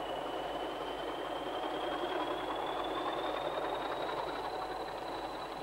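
Diesel locomotive hauling a train of coal hopper wagons, its engine running steadily as the train approaches, growing slightly louder in the middle. A faint high whine rises slowly in pitch throughout.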